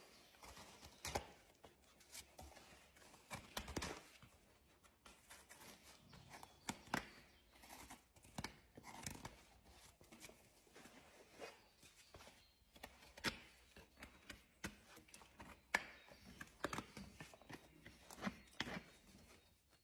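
Farrier trimming a horse's hoof: faint, irregular cuts and scrapes of hoof tools on the hoof horn.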